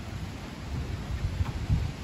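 Wind buffeting the microphone in uneven low rumbling gusts, over a steady faint hiss, during a thunderstorm.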